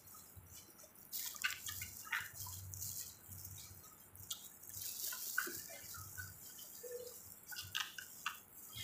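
Wet eating sounds: chewing and lip smacks, and sauce-covered crab and shrimp being pulled apart with plastic-gloved hands, in irregular small squelching clicks and crackles.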